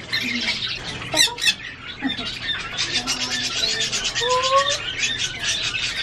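Caged pet-store parrots, such as cockatiels and a sun conure, squawking and chattering. Two loud, sharp squawks come about a second in, followed by rapid, dense chatter.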